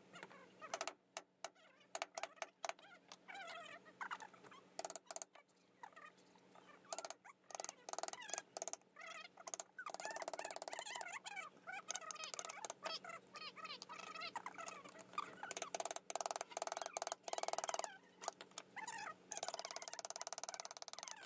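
Hand chisel cutting into wood: a run of sharp clicks and cuts. Wavering pitched calls sound in the background.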